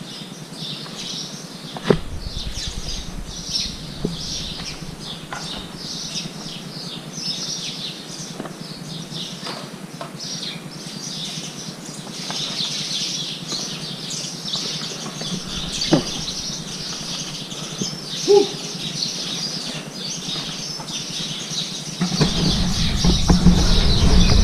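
Many birds chirping together in a continuous, dense high-pitched chatter, with a few short knocks and a low rumble on the microphone now and then.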